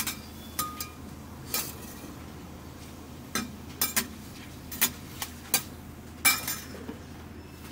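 Metal cooking utensils clinking and tapping against pans and dishes: about a dozen sharp, briefly ringing clinks at uneven intervals, over a steady low background hum.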